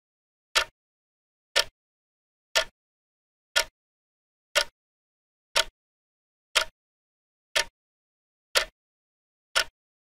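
Clock ticking: one short, sharp tick each second, evenly spaced, with dead silence between the ticks.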